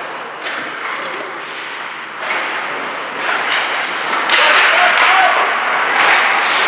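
Ice hockey play in a rink: sticks and the puck knocking on the ice and boards, with spectators' voices that grow louder about four seconds in.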